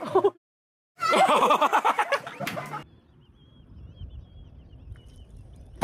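Loud burst of laughter, rapid and pulsing, for about two seconds, then faint background noise with a thin, high warbling whistle.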